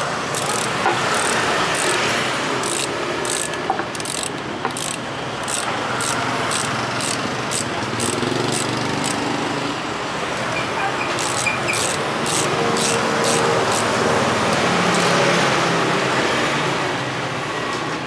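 Ratcheting screwdriver clicking in runs of quick, even clicks, about three a second, as screws are turned in a motorcycle's headlight cowl, with two pauses. Steady street traffic noise underneath.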